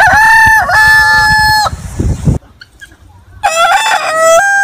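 A rooster crowing twice, loud. The first crow ends about a second and a half in, and the second begins about three and a half seconds in.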